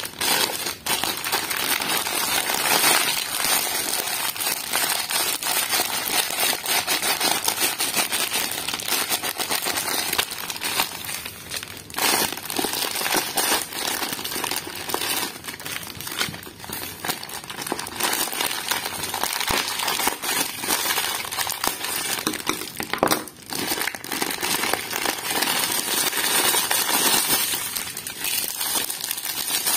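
Thin clear plastic wrap crinkling and crackling almost without a break as gloved hands squeeze and peel it off a squishy toy, with a few short pauses.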